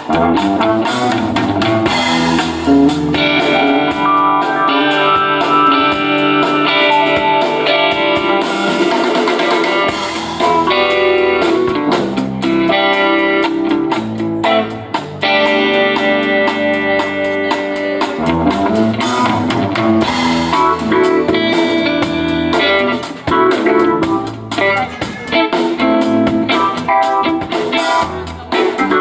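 A band playing live at a sound check: guitar over a drum kit.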